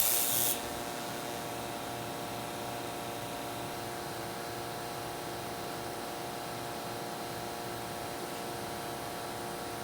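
TIG welder striking an arc with a brief crackling hiss about the first half second, followed by a steady electrical hum with a faint hiss while the pin on a steel bit is welded.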